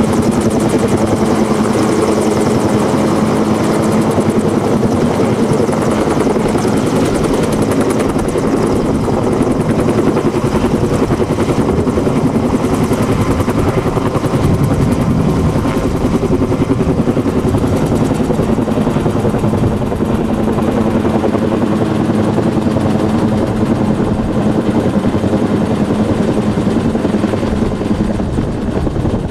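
Utility helicopter hovering low with power poles slung on a long line, then passing close overhead. Its rotor beats loud and steady with a constant hum, easing slightly near the end.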